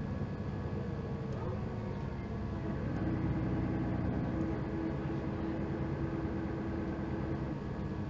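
Cabin sound of a 2003 Mercedes-Benz O530 Citaro Ü bus under way: its diesel engine and ZF automatic gearbox running steadily, with a steady whine coming in about three seconds in.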